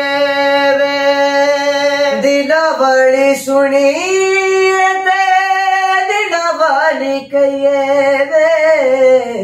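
A young man singing a Punjabi song unaccompanied in a high voice, drawing out long notes with ornamented turns. He rises to a higher held note about four seconds in and sinks back about two seconds later.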